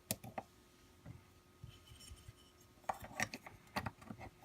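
Small parts of a holster's locking mechanism clicking and tapping as they are handled and pressed into place by hand: a scatter of sharp clicks, busier in the second half.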